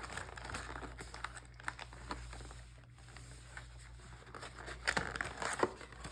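Plastic card packaging crinkling and tearing as it is pulled open by hand, with small handling clicks and a busier burst of rustling near the end.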